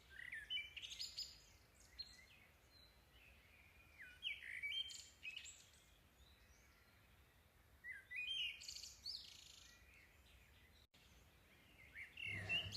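Birds chirping faintly in three short bursts of quick high notes, about four seconds apart.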